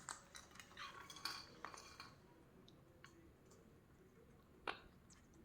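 Faint, scattered clicks and clinks of ring-necked parakeets pecking rice from a feeding dish, with one sharper click about four and a half seconds in.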